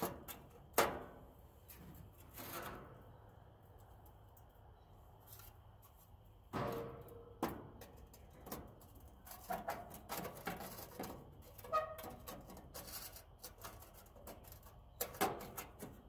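Rusty steel heat tents on a Char-Broil gas grill being handled and set down over the burners. Scattered metal clanks and scrapes come at irregular intervals, some ringing briefly, the loudest about a second in.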